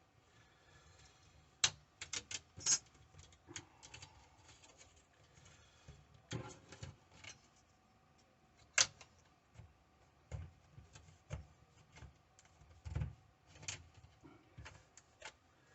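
Scattered light clicks and taps at an irregular pace, of hands and small tools working on a Chromebook's plastic screen assembly, with a few sharper clicks among them.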